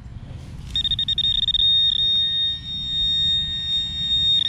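Metal-detecting pinpointer alerting on a target: about a second in, a high-pitched electronic tone starts as rapid pulses and then holds as a steady continuous tone, the sign that the probe is right on the metal, here a dime in the hole. Low rumble of handling underneath.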